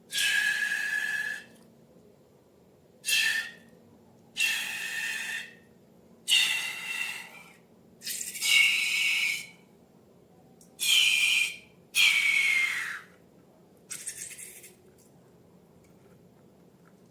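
Air squealing out through the neck of a balloon in about eight short spurts, each a hiss with a high whistling tone; one squeal slides down in pitch near the end.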